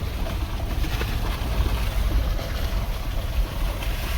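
Off-road vehicle crawling in four-low along a rutted dirt trail, heard from inside the cabin: a steady low engine and tyre rumble with scattered small rattles and knocks from the bumps.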